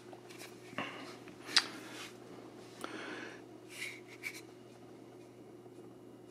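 Hands handling a power supply brick and its cord: a few light knocks and rustles over the first four seconds or so, the sharpest about a second and a half in, then the handling stops.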